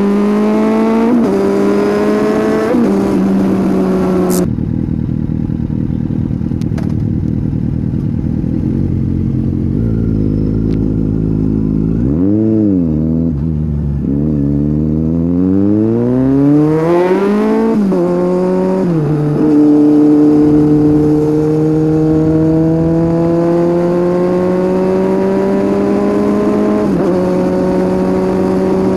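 Kawasaki Z800's inline-four running through a Scorpion aftermarket exhaust, heard from on the bike. It pulls up through the gears with quick upshifts, the throttle closes about four seconds in to a low coasting rumble, then a short throttle blip and a hard acceleration with further upshifts, settling into a steady run that climbs slowly in pitch.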